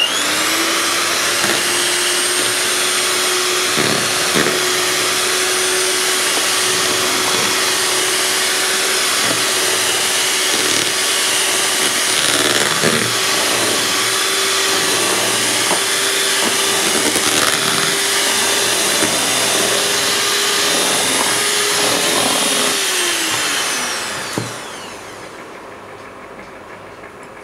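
Electric hand mixer running at a steady speed, its beaters whipping egg whites with powdered sugar in a plastic bowl. The motor's steady whine falls in pitch and stops near the end as it is switched off.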